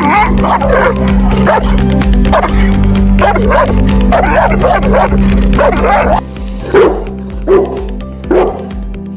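A Cane Corso barking in a quick run, about two barks a second, then, about six seconds in, a Bullmastiff giving single barks spaced under a second apart, over steady background music.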